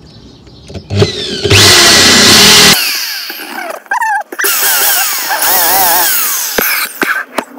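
A 750 W corded electric drill drilling holes straight through an L-bracket into a wooden cabinet. It starts about a second in and runs loudest for over a second. It then carries on more quietly with a wavering pitch and brief stops, and halts near the end.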